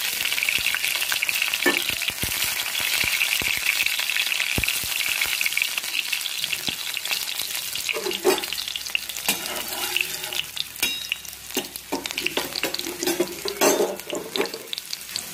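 Green chillies and cumin seeds sizzling and crackling in hot oil in an iron kadhai. A dense sizzle at first, thinning after about six seconds to scattered pops and spits as the spices fry.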